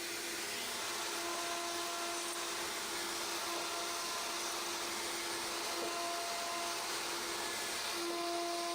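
CNC router spindle milling aluminium: a steady high whine and hiss, with a cutting tone that comes and goes every second or two as the cutter engages the metal.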